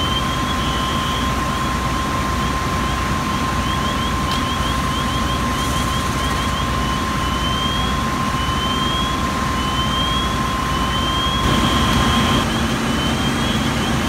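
A large vehicle engine running steadily, with a steady high whine over it that stops near the end, and short high electronic chirps that turn into rising sweeps about once a second. Near the end a lower hum comes in and the sound grows a little louder.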